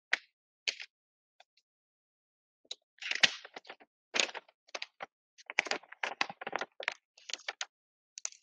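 Sheet of paper being handled, folded and creased by hand on a tabletop: a run of short crackles and rustles, a few at first and then many in quick succession from about three seconds in.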